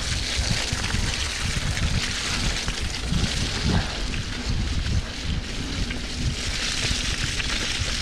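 Mountain bike rolling fast down a muddy, rutted dirt track: wind buffeting the microphone, with tyres churning through wet mud and small knocks from the bike over the ruts.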